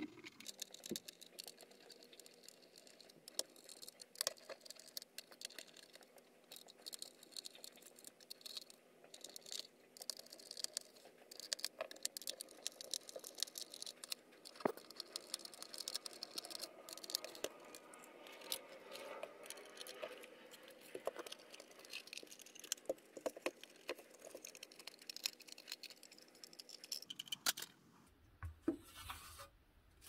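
Faint, irregular clicks and scrapes of a small precision screwdriver backing screws out of a plastic computer case, with the case being handled. There are a few louder knocks near the end as the case comes apart.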